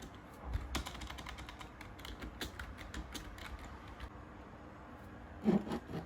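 Typing on a mechanical keyboard: irregular, separate key clicks.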